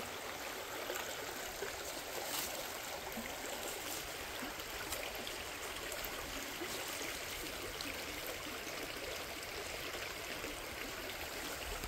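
Steady rushing of a stream, with a few faint clicks.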